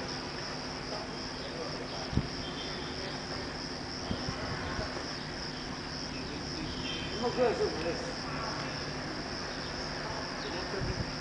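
Insects chirping in a steady high-pitched trill. A single knock sounds about two seconds in, and a few brief wavering sounds come about seven seconds in.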